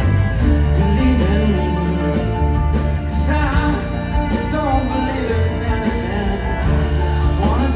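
Live band playing a mid-tempo acoustic rock song, with acoustic guitars and drums under a sung vocal line.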